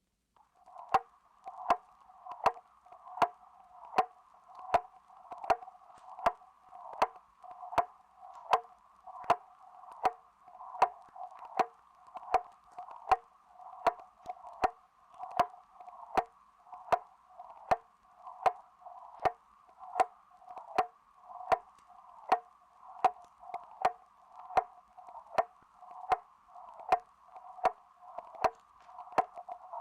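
Grandfather clock ticking steadily, an even tick-tock with strong and weaker strokes alternating, a little over one loud tick a second. It starts about half a second in.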